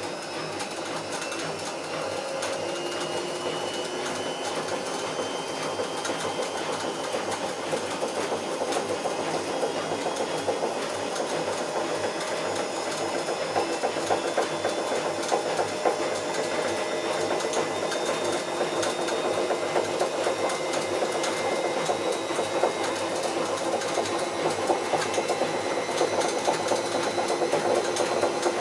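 Bauknecht WA Plus 844 washing machine drum turning, a dense rapid clatter under tones that slowly rise in pitch as it gets gradually louder, as the drum speeds up. This is the noise of a damaged drum bearing.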